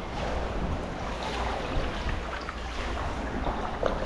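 Sea water sloshing and lapping in a narrow sea cave around sea kayaks, with the swish of paddle strokes and a few sharp splashes.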